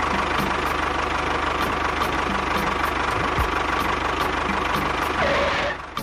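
Tractor engine running steadily with a fast, even chug, dropping away briefly near the end.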